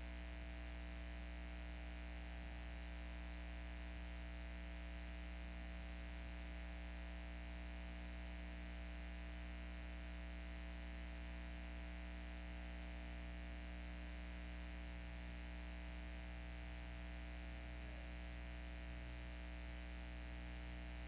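Steady electrical mains hum with a low buzz and light hiss from the audio feed, unchanging throughout, with no other sound.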